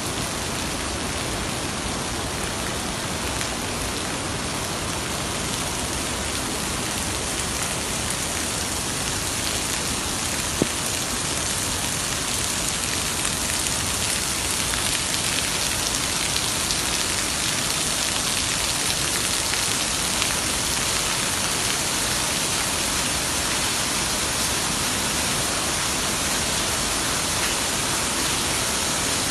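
Steady, loud rush of falling water, with one sharp click about ten seconds in.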